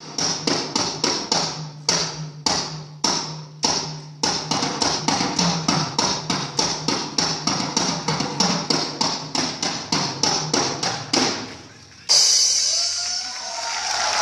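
Drum kit played live, evenly spaced strikes about three a second over a low sustained tone, ending about eleven seconds in. The audience then breaks out suddenly into applause and cheering.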